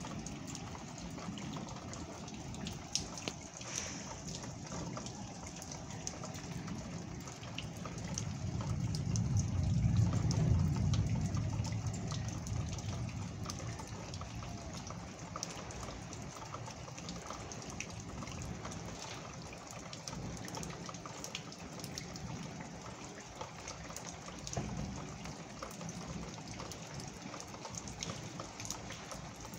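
Steady rain falling, with a patter of many small drops; a low rumble swells and then fades about a third of the way in.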